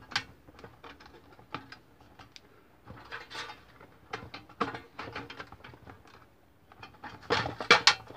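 The metal heating element and its steel housing being worked loose from the Philco air fryer's plastic body: irregular clicks, knocks and rattles of metal against plastic as it snags and frees, with a louder cluster near the end.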